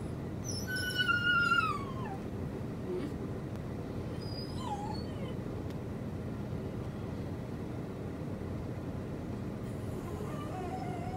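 Doberman-mix puppy whining in her crate. One long whine that falls in pitch comes near the start, a short one about four seconds in, and a faint one near the end. She doesn't care for the crate.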